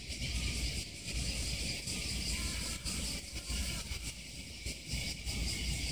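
Steady outdoor background: an even high-pitched hiss over a low fluttering rumble, with no clear event standing out.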